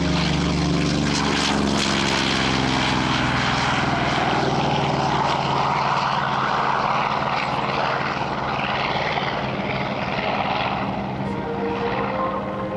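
Propeller-driven piston-engined vintage warplane flying past. A steady engine drone gives way, a few seconds in, to a broad rush of engine and propeller noise that eases off near the end.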